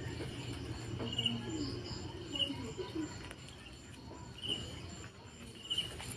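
Insects chirping outdoors after dark: short high chirps repeating every second or so over a faint steady high trill, with a low steady hum underneath.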